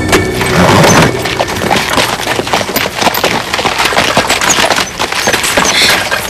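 Rapid, irregular clatter of many sharp cracks, dense like a fusillade, with music underneath.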